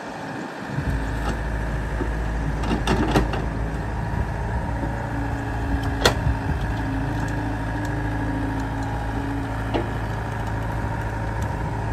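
Yanmar ViO70 mini excavator's diesel engine and hydraulics running under load as the bucket digs wet soil, with a few sharp knocks as the bucket strikes the ground. A steady hum is added from about the middle until near the end.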